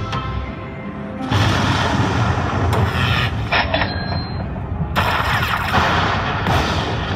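Aristocrat Lightning Link slot machine's game sounds: after a second of chiming music, loud thunder-crash effects come in two long bursts, about a second in and again near five seconds, as lightning strikes the pearl symbols and the bonus win tallies up.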